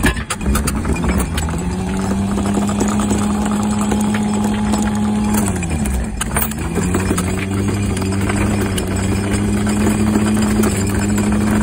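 Electric anchor windlass running under remote control, hauling chain over its gypsy: a steady motor hum that winds up, runs about five seconds, winds down and stops about six seconds in, then starts again, with the chain links rattling throughout.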